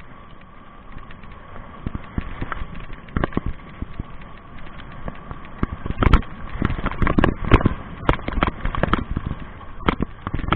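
Homemade 1500 W electric bike ridden fast over a bumpy forest trail: a steady high motor whine under knocking and rattling from the bike over the bumps, which comes thicker and louder from about halfway through.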